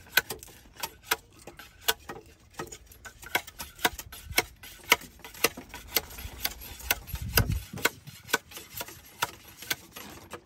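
A quick, irregular series of sharp knocks and clicks, several a second, with a short low thud about seven seconds in.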